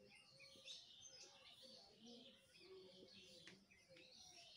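Near silence, with faint birds chirping in the background.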